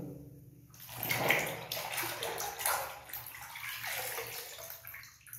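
Water splashing and sloshing in a basin of soapy water as a toy vehicle is dipped and scrubbed by hand, in irregular splashes that start about a second in and die away near the end.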